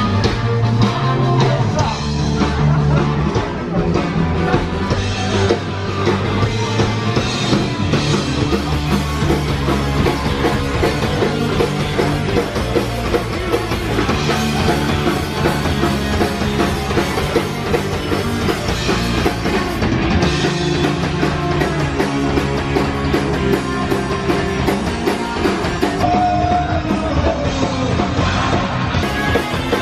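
Loud punk rock music from electric guitars, bass and a drum kit, playing without a break.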